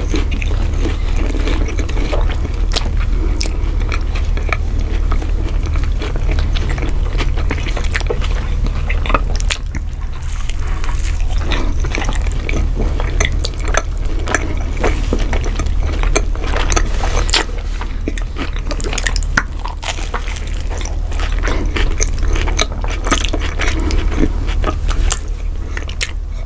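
Eating: many small, irregular crunches and clicks of food being bitten and chewed, over a steady low hum.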